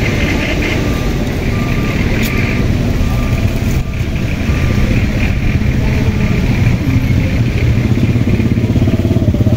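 A motor vehicle engine running steadily, a loud low rumble, with a short high beep repeating evenly through the first few seconds.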